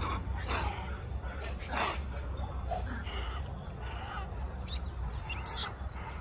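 Water splashing as macaques swim, a few short splashes over a steady low hum.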